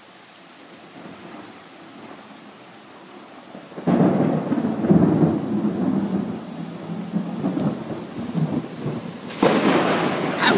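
Thunderstorm: steady rain hiss, then a thunderclap breaks out suddenly about four seconds in and rumbles on for several seconds. A second sharp clap follows near the end.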